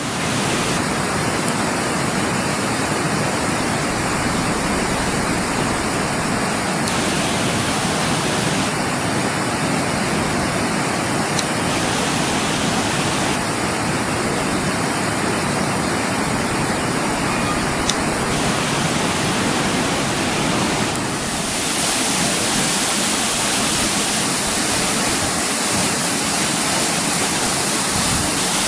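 Waterfall's falling water, a steady loud rushing hiss that changes slightly in tone about two-thirds of the way through.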